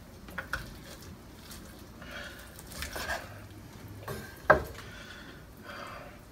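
Cutlery clinking and scraping on a plate while the cooked chicken is served, with small clicks and one sharper knock about four and a half seconds in.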